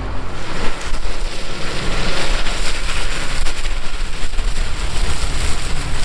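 Case IH Magnum tractor pulling a stalk shredder through dry corn stalks: a steady rushing noise, mixed with wind on the microphone.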